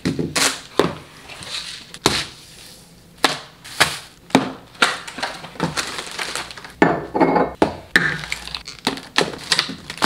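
Groceries being unpacked onto a kitchen countertop: plastic clamshell containers, a can and packages set down one after another with sharp taps and clatters, and plastic packaging crinkling now and then.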